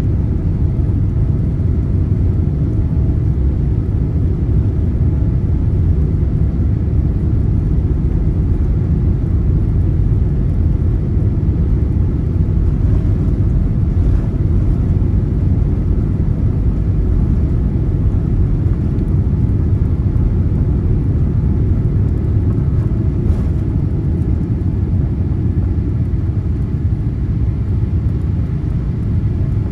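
Boeing 787-8 Dreamliner on its takeoff roll at full thrust, heard from inside the cabin: a steady, loud, deep rumble of engines and runway with faint steady engine tones above it. A couple of faint knocks come through midway.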